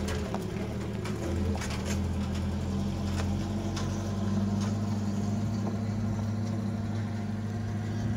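Pickup truck engine running low and steady as the truck pulls away over a dirt track, with a few light knocks in the first few seconds.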